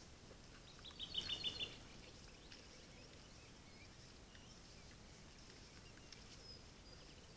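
Quiet forest ambience with faint scattered chirps; about a second in, a bird gives a short, rapid chattering call of several quick notes. A faint steady high whine runs underneath.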